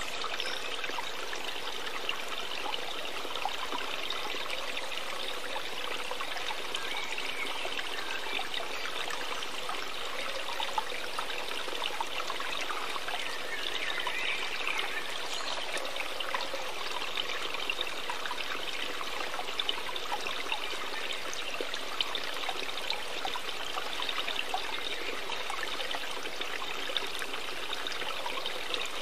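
Steady trickling, running-water noise, like a stream, with faint scattered ticks.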